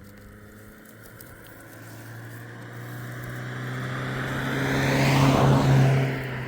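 A motor vehicle approaching and passing close by, its engine hum and road noise growing louder to a peak about five to six seconds in, then falling away.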